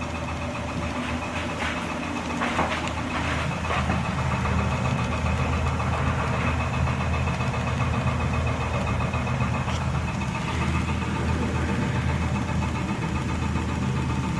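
Steady low mechanical hum with a few light knocks and clicks in the first few seconds; it gets slightly louder about four seconds in.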